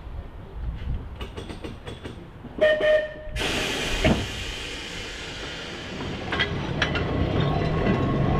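Manx Electric Railway 1894 G.F. Milnes vestibuled saloon tram moving off along the track. A short loud tone sounds about three seconds in, then a steady hiss, with the wheels clicking over the rails and a rising rumble as it gets under way.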